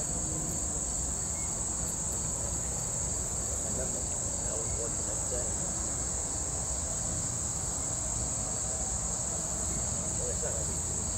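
Steady high-pitched chorus of summer insects buzzing without a break, over a low steady rumble.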